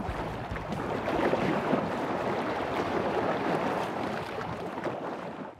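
Water lapping and splashing, a steady noisy wash that fades out at the end.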